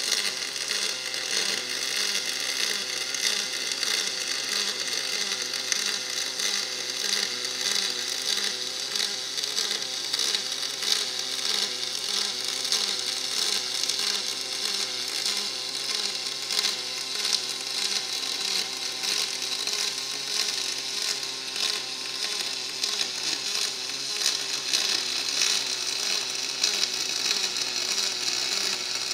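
Kemppi FastMig X Black double pulse MIG welding arc running continuously on aluminium: a steady hissing buzz with a regular low pulsing under it.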